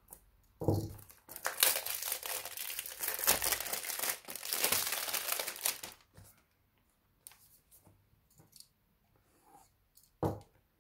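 Phone box packaging being torn and crinkled by hand for about five seconds, after a knock as it is handled. A few light clicks and another knock follow near the end.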